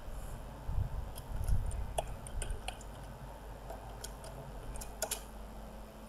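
Computer keyboard keys clicking as code is typed, about a dozen irregular keystrokes. A low rumbling thud comes about a second in.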